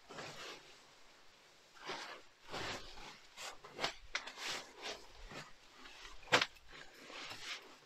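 Nylon sleeping bag and sleeping pad rustling and shuffling in irregular bursts as someone settles into the bag on a wooden floor, with one sharp knock about six seconds in.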